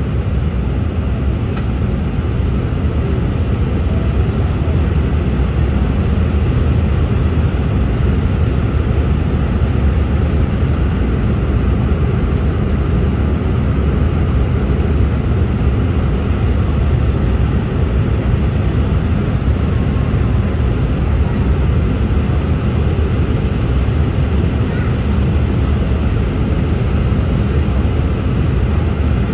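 Steady, loud cabin noise of an Embraer 195-E2 heard from a window seat beside the wing: its Pratt & Whitney PW1900G geared turbofan engine and the air rushing past the fuselage make an even rumble as the airliner flies its approach.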